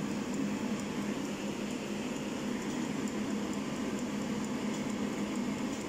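Steady fan hum with a low drone, holding an even level throughout.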